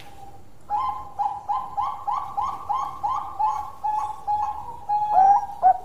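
Bangkok perkutut (zebra dove) singing its long cooing song: a steady run of short, repeated notes, about three a second, starting under a second in, then louder and quicker near the end.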